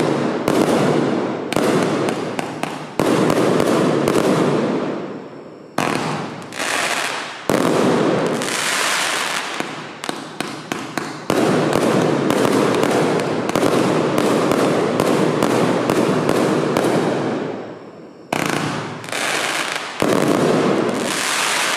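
216-shot fan-pattern firework compound cake (Signature Show) firing in dense rapid volleys of shots and bursts, with short lulls about six and eighteen seconds in.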